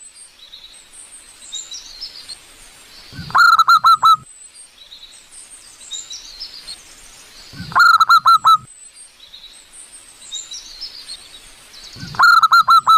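Zebra dove (perkutut) cooing: three loud song phrases about four and a half seconds apart. Each starts low and then runs into about five quick, rolling notes, and the last one is cut short at the end. Faint high chirps of small birds sound between the phrases.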